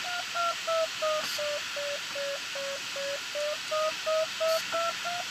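Glider's audio variometer beeping about three times a second, the sound of the sailplane climbing in a thermal. The beep pitch sinks through the first half and rises again near the end, as the climb rate weakens and then strengthens. Steady airflow hiss runs underneath.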